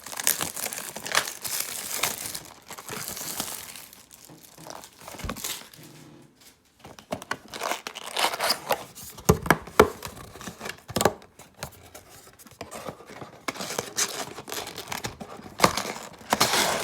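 The packaging of a sealed Magic: The Gathering Core Set 2020 booster box being torn open and crumpled, in irregular bursts of tearing and crinkling. There is a short pause about six seconds in.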